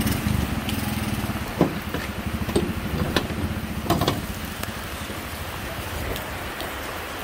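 Small motorcycle engine idling with a fast, even putter, with a few sharp knocks in the first four seconds.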